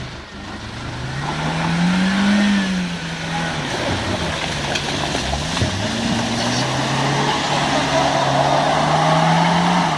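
Off-road 4x4 engine revving under load as it tries to power through an obstacle. The revs climb to a peak about two seconds in, drop back, dip twice more, then hold high before easing off near the end, with a steady hiss running over the engine.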